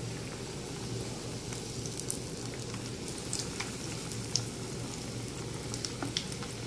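Breadcrumb-coated potato balls frying in hot oil in a pan: a steady sizzle with scattered small pops.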